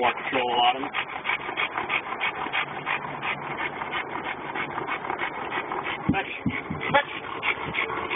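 Police service dog panting fast and evenly, several breaths a second.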